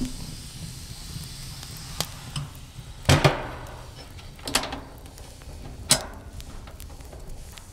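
A few separate sharp knocks, about four of them, with the loudest, a double knock with a short ring, about three seconds in.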